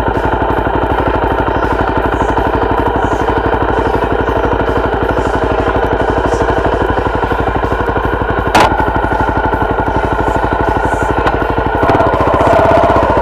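Honda XR250 Tornado's single-cylinder four-stroke engine running steadily, close to the microphone. A sharp click comes about eight and a half seconds in, and the engine gets louder near the end.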